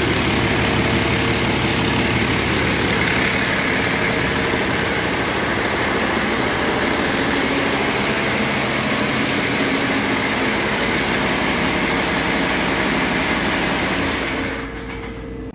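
2020 Detroit Diesel DD8 7.7-litre inline-six diesel running steadily on a test stand, with an even, unchanging engine note; the sound drops away near the end.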